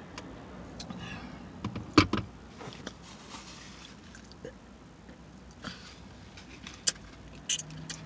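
Close-miked eating sounds: wet mouth smacks and chewing clicks from someone eating a crepe. There is a sharp, loud click about two seconds in and two more near the end.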